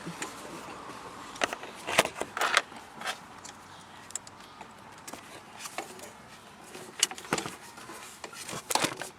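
Irregular clicks, clacks and scraping of plastic and metal parts being pulled and worked by hand on a car's gear shifter assembly during a shift-lever swap, with the sharpest knocks about two seconds in, again at two and a half and seven seconds in, and a cluster near the end.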